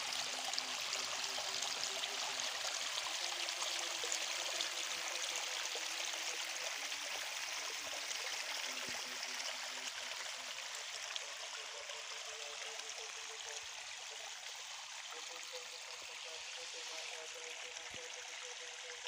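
Irrigation water flowing and splashing along a field channel, a steady rushing that eases somewhat about halfway through.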